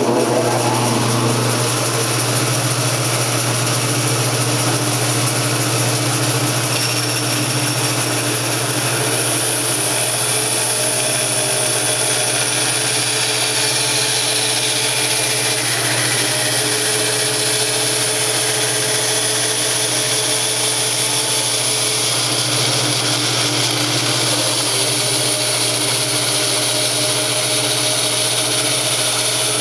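Old Jet bandsaw running steadily while resawing a wooden board along its length, the motor's steady hum under the hiss of the rusty blade cutting through the wood.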